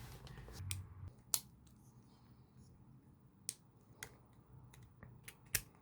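Sharp clicks of small Beyblade parts being handled and snapped together by hand, about six separate clicks over a few seconds, the loudest about a second in and near the end.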